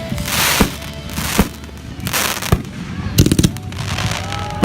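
Consumer fireworks going off: sharp bangs, a few seconds of hissing, crackling rushes, and a quick string of pops about three seconds in.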